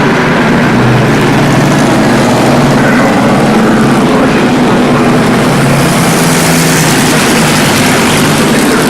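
Vintage Indy race car engine running loud at a steady pitch, with no revving up or down; a harsher, hissier edge builds from about six seconds in.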